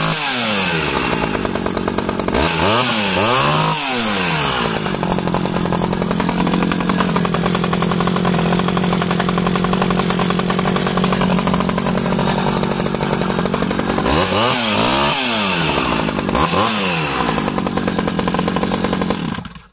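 Stihl 009 36cc two-stroke top-handle chainsaw, just started with the choke on, running in the hand. It is revved up and back down a few times near the start and again in the last third, idles steadily in between, and stops abruptly just before the end.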